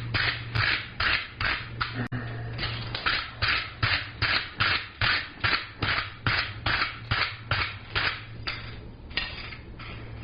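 Wire brush scrubbing a freshly heated forged steel hook in quick back-and-forth strokes, about three a second, with a short break about two seconds in; the strokes grow fainter and stop near the end.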